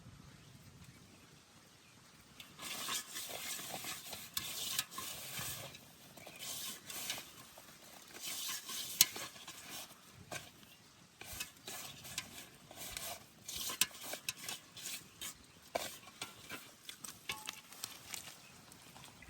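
Irregular bursts of water splashing, with some sharp clicks, starting about two and a half seconds in.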